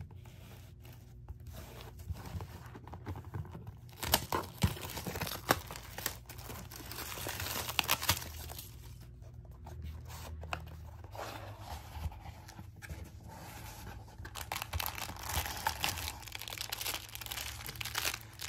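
Cardboard kit box handled and opened by hand: paper and cardboard sliding and scraping with small knocks, then the plastic wrap around the packed manual crinkling.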